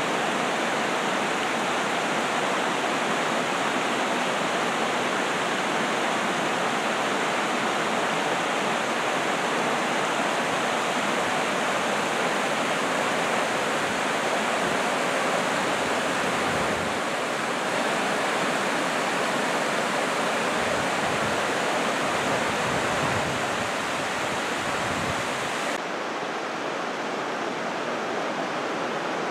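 Shallow creek rapids rushing over rocky bedrock shoals: a steady, even rush of water. Near the end it turns slightly softer and duller.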